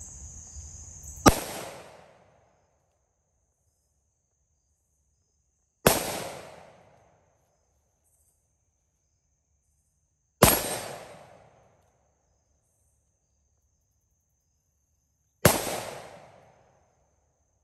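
Four shots from a Taurus Protector Polymer .357 Magnum revolver, about four to five seconds apart, each a sharp crack with a short echoing tail. A faint steady insect drone runs between them.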